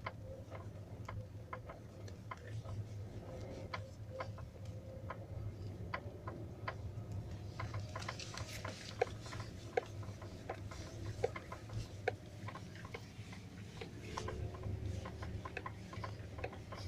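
Irregular light knocking and ticking in a Hyundai Accent, many sharp clicks at uneven spacing, a few louder ones in the middle, over a steady low hum. The source is unknown: door and hood hinges, wiring and the door have been checked without finding it.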